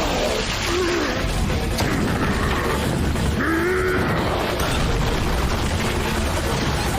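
Anime soundtrack: music mixed with heavy, rumbling fight sound effects and crashes.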